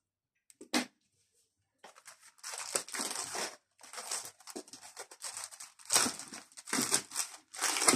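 Plastic packaging and foam wrap crinkling and rustling in irregular bursts as the package is handled and cut open with a utility knife, after a single sharp click about a second in.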